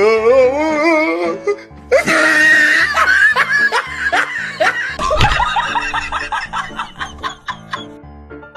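Laughter sound effects over background music: a wavering laugh at first, then a burst of laughing about two seconds in and a run of short repeated 'ha-ha' pulses.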